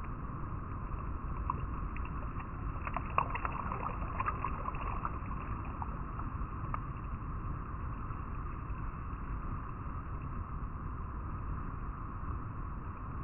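River water flowing steadily over rocks, with a short flurry of sharp ticks about two to five seconds in.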